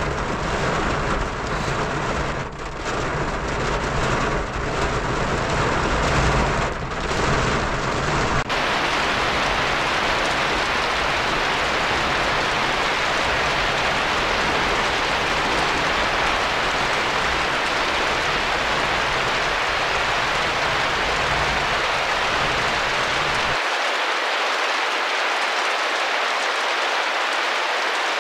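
Heavy rain on a car, heard from inside the cabin, over a low road rumble. About eight seconds in the sound switches abruptly to a steady, brighter rain hiss, which loses its low end near the end.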